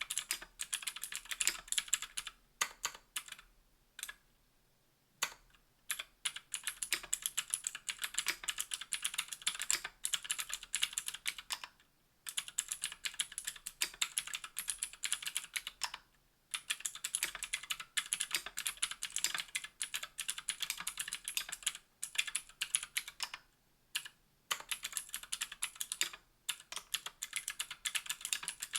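Typing on a KBDfans Tofu60 aluminium keyboard with Gateron Green clicky switches on an aluminium plate and GMK keycaps: fast runs of sharp clicky keystrokes, broken by several short pauses. The longest pause, about two seconds, comes a few seconds in.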